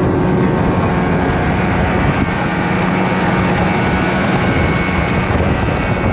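Snowmobile engine running steadily while riding across the ice, with a constant hum and a rushing noise over it.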